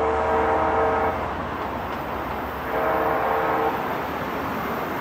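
Sounder commuter train's horn sounding in blasts as the train approaches: one blast ends about a second in, and a second blast of about a second sounds in the middle, with the train's rumble underneath.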